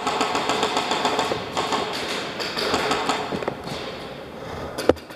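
Rapid clatter of airsoft gunfire in a large warehouse arena, dense at first and thinning out after about three seconds, with one sharp crack near the end.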